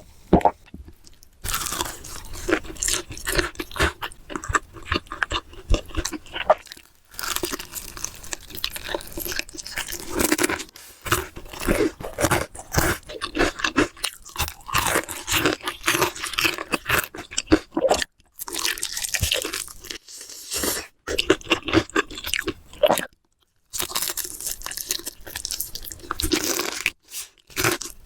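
Crispy fried chicken being bitten and chewed close to the microphone: loud crackling crunches of the breaded crust, with a few short pauses between bites.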